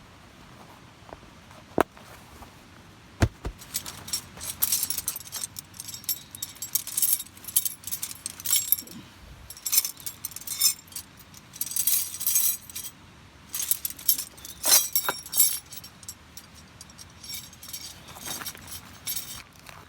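Small hard metal objects being handled, clinking and jangling in a run of short rattles, with a couple of sharp knocks near the start.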